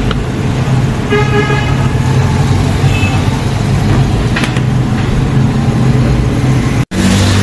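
Street traffic with a steady low engine hum and a vehicle horn honking briefly about a second in. The sound drops out for an instant near the end.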